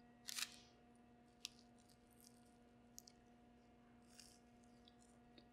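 Near silence broken by a few faint, short mouth noises of a person biting and chewing a soft cheesy keto biscuit, the clearest one within the first half second, under a faint steady hum.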